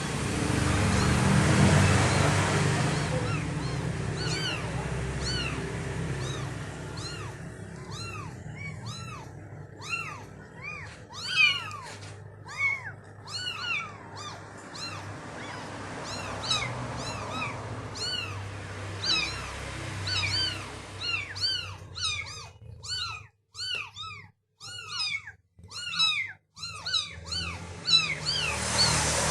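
Kittens mewing over and over: many short, high calls that rise and fall in pitch, several often overlapping. A rush of noise is heard in the first few seconds before the calls take over.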